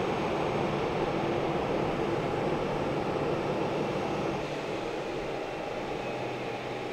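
Boeing 737-800's CFM56-7B jet engines running at idle with the aircraft stopped at the gate: a steady rushing hum with a faint high whine. The sound drops a little about four seconds in.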